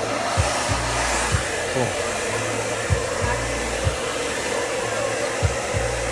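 Handheld blow dryer blowing steadily close to the microphone, drying spritz into twisted curls to set them. Short low thumps come through now and then.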